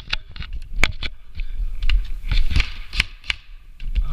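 Airsoft gun firing single shots at an irregular pace, sharp clicks a fraction of a second to a second apart, as the magazine is emptied. Low thumps and rumble run underneath.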